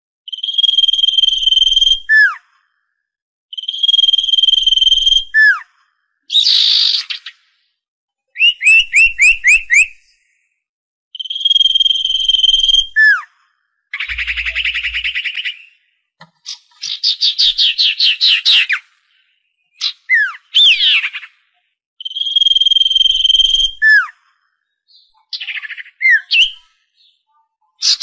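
Common iora song: a long, steady, high whistle ending in a quick downward slur, given four times, with rapid trills and harsh chattering notes in between.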